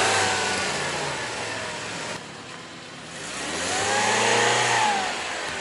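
Hyundai Elantra GT's 1.8-litre four-cylinder engine on its stock exhaust as the car is driven at low speed. The engine note drops suddenly a little over two seconds in, then swells and rises and falls in pitch around four seconds in.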